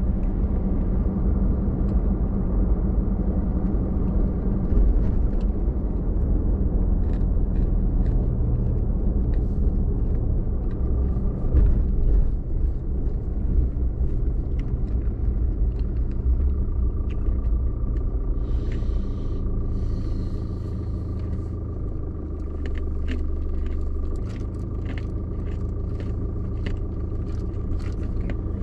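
A car being driven, heard from inside: a steady low rumble of engine and road noise, with a run of light ticks in the last few seconds.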